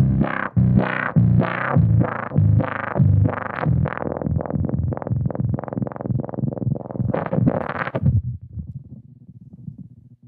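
Electric bass played through a GigFx SubWah pedal with distortion, giving a synth-like tone: a run of quick repeated notes, each opened up by the wah filter. After about eight seconds the bright top drops away and the playing trails off to a low tail.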